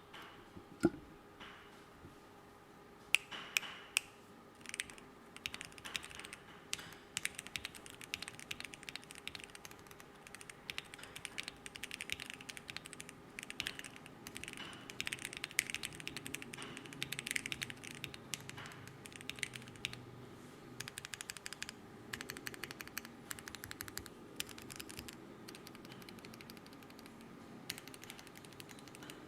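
Fast typing on a caseless keyboard, keystrokes clacking in quick runs. A few single key presses come first, then long bursts of rapid typing with a short pause partway through, thinning out near the end.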